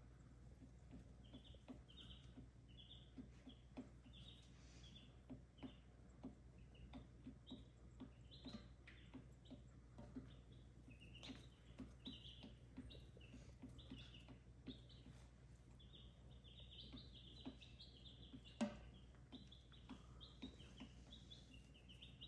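Baby chicks peeping softly, many short high chirps one after another, with faint light ticks between them and one sharper knock late on.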